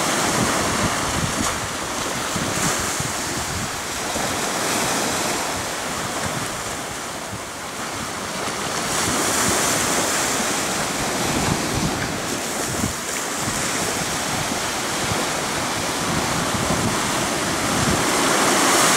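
Sea surf: small waves breaking and washing in the shallows, with wind buffeting the microphone.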